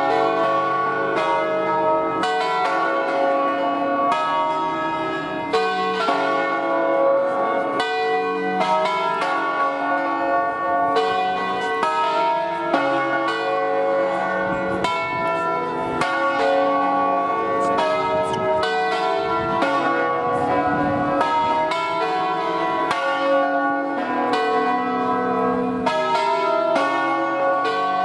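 Church bells of a five-bell Ambrosian-system set in B (Barigozzi, Milan, 1937), rung by rope and swinging on their wheels. Strike follows strike, and the ringing of each bell overlaps the next.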